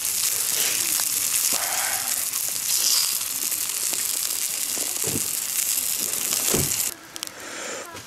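Food frying in a pan: a steady sizzling hiss that cuts off suddenly about seven seconds in.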